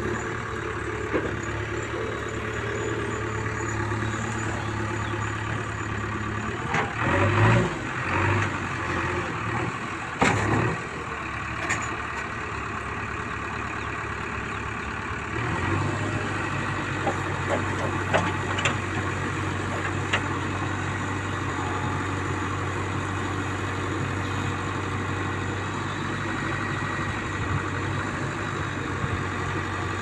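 JCB 3DX backhoe loader's diesel engine running steadily as its backhoe arm works, with a few short louder surges about a third of the way in. About halfway through the engine note deepens and stays steady.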